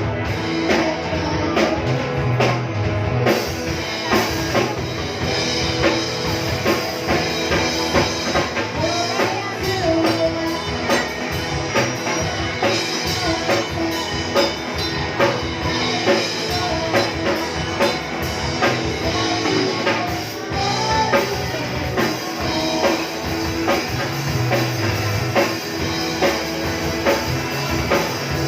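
A rock band playing live on drum kit and guitars; the cymbals come in about three seconds in.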